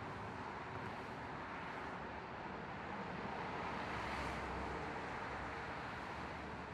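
Steady distant road-traffic noise, an even rush with no separate events.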